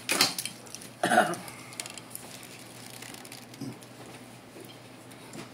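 Two short, loud breathy bursts from a person with a paper napkin held to her face, about a second apart, then only faint room tone.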